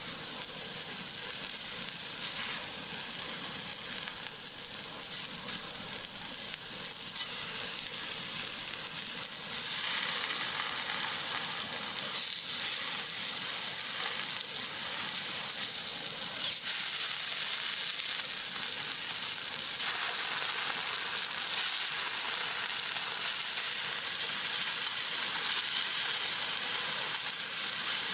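Frozen pork belly slices sizzling on a hot, oiled round griddle pan. The sizzle steps up louder about ten and sixteen seconds in as more food covers the pan.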